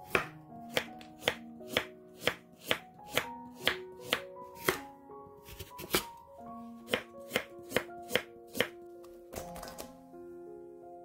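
Kitchen knife slicing a Korean radish thinly on a wooden cutting board, the blade knocking the board about twice a second, over background music. The knocking stops shortly before the end, leaving only the music.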